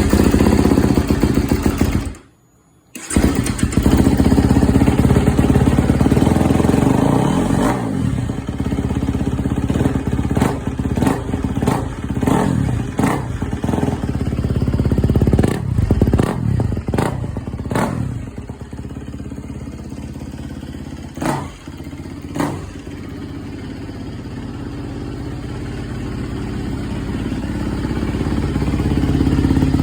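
Kawasaki KX250 four-stroke single-cylinder dirt bike engine running, with the throttle blipped in a quick run of short revs through the middle, then settling back to a steady run.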